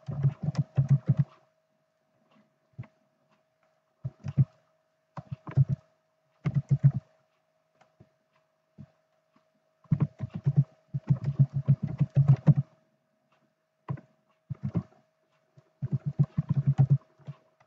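Typing on a computer keyboard: bursts of rapid key clicks with short pauses between them.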